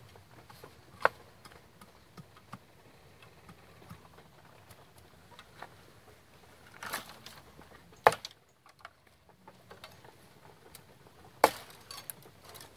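Handling noise as a wire-mesh cage trap and sticks are moved about in dry leaf and bamboo litter: scattered rustling and small clicks, with three sharp knocks about a second in, about eight seconds in and near the end.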